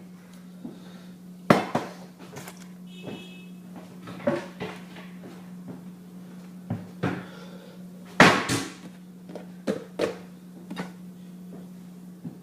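Kitchen clean-up clatter: scattered knocks and clunks of dishes, utensils and cupboard doors being handled, the loudest about eight seconds in, with a brief ringing clink about three seconds in. A steady low hum runs underneath.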